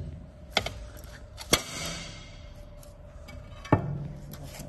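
Three sharp clicks of cut glass sheets knocking against each other and the cutting-table surface as they are handled, the middle one the loudest, over a faint steady hum.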